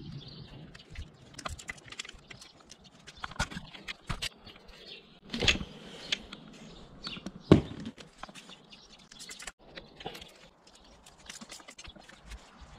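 Scattered clicks, taps and metallic clanks of hand tools and parts being handled, with two louder knocks about five and a half and seven and a half seconds in.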